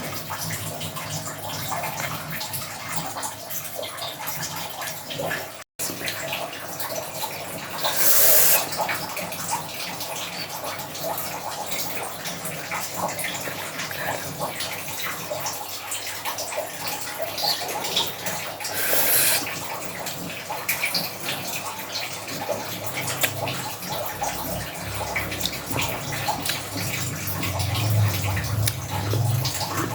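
Steady rush of running water, with two louder hissing surges about eight and nineteen seconds in.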